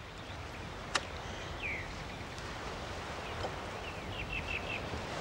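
Steady background hiss with a single sharp click about a second in and a few faint, short high chirps, one falling and later a quick row of about five.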